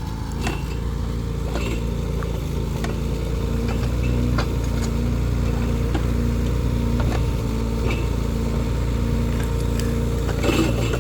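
Mini excavator's engine running steadily, with scattered light knocks and clicks over it. The engine gets a little louder about four seconds in.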